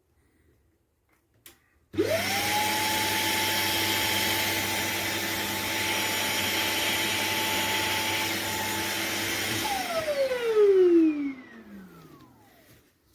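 A Shark Detect Clean & Empty vacuum motor switches on about two seconds in. It whines up quickly to a steady high pitch over a loud rush of air and runs for about eight seconds. It then shuts off with a brief louder surge and winds down with a falling whine.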